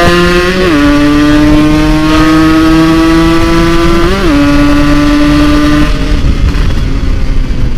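Modified Yamaha RX-King's two-stroke single-cylinder engine accelerating hard through the gears. Its note climbs steadily and drops with an upshift about two-thirds of a second in and again around four seconds. Near six seconds the throttle closes and the engine note falls away, leaving a rush of wind.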